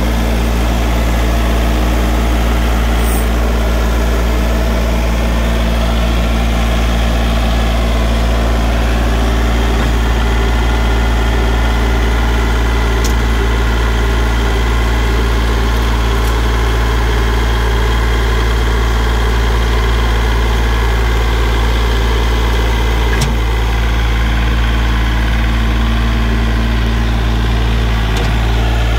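Compact diesel tractor engine idling steadily.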